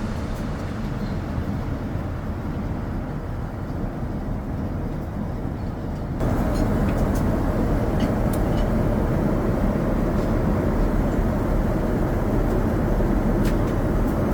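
Steady low rumble of a Boeing 787-9 airliner cabin in flight: engine and airflow noise heard from inside the cabin. It steps up louder about six seconds in, with a few faint ticks after that.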